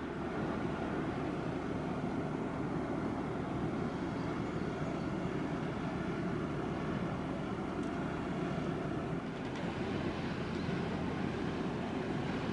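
Steady low rumble of a large wood chip carrier passing by, with faint steady tones in it.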